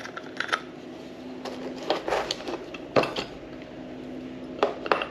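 Scattered metallic clicks, clinks and knocks as a KME knife sharpener is taken apart by hand and its parts handled and set down, with the sharpest taps near the middle and near the end.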